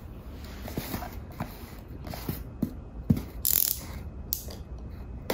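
A cardboard parcel being handled and opened: scattered light clicks and knocks, with a few short scratchy rasps from the packing tape being opened, at about three and a half and four and a half seconds in.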